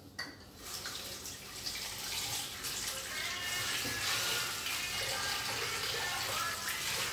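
Kitchen tap running into a plastic basin in the sink while raw chicken pieces are rinsed by hand, with splashing. The water grows louder over the first few seconds.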